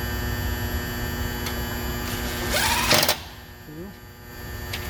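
Cordless drill-driver running as it drives a screw back into the rim lock. It grows louder to a brief peak and cuts off suddenly about three seconds in. A steady electrical hum continues underneath.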